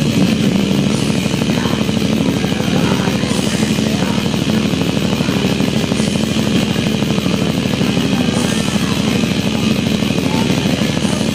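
Loud live death metal: heavily distorted electric guitar over fast, dense drumming, with a few bursts of cymbal wash, forming a steady wall of sound.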